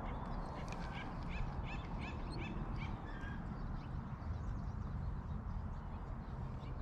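A quick run of short chirping bird calls, about three or four a second, in the first few seconds, over a steady low rumble of wind on the microphone.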